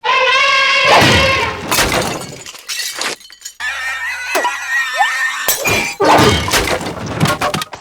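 A string of cartoon sound effects: a held pitched tone at the start, crashes and smashing breakage, a steady tone with a couple of quick pitch slides in the middle, then a rapid run of crashes near the end.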